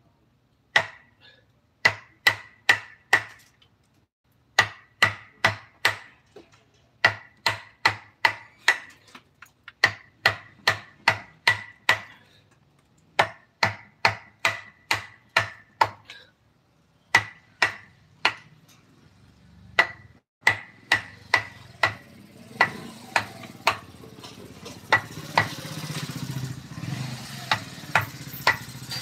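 A mallet striking a carving chisel into wood in runs of sharp knocks, about three a second, with short pauses between runs. Each knock has a brief ringing click. In the second half a low engine-like rumble builds underneath.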